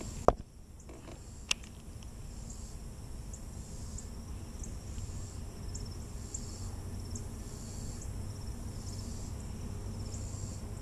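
Insects chirping steadily, a short high chirp repeating about every two-thirds of a second over a continuous high hiss. Two sharp handling clicks come early, the first about a third of a second in, the second about a second and a half in.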